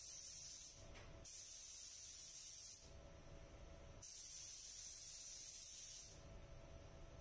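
Gravity-feed paint spray gun hissing in trigger pulls as silver basecoat is sprayed: the hiss breaks briefly about a second in, stops for about a second near the middle, and cuts off about 6 seconds in. A faint steady hum lies beneath it.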